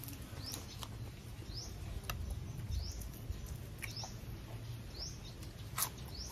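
A small bird chirping over and over, a short rising chirp about once a second, with a few sharp clicks, the loudest one near the end.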